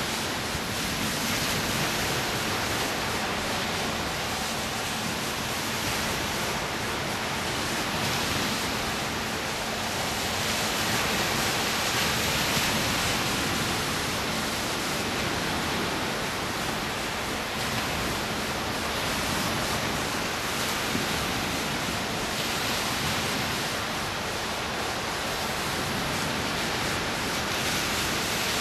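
Small, gentle surf breaking and washing up the beach: a steady rush that swells and eases every few seconds.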